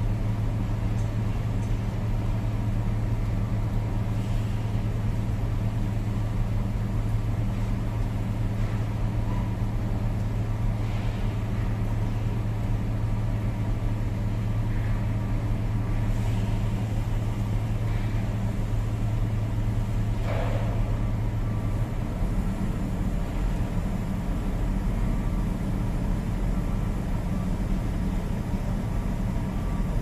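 Diesel engines of heavy equipment running steadily, with a deep, even hum that drops out about 22 seconds in and leaves a rougher low rumble.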